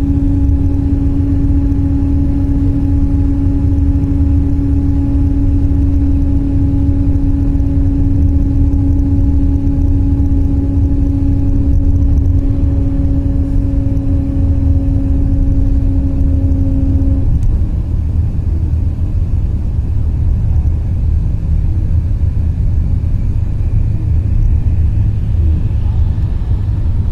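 Steady low rumble of road and engine noise inside a vehicle travelling along a highway, with a steady hum over it that cuts off suddenly about two-thirds of the way through.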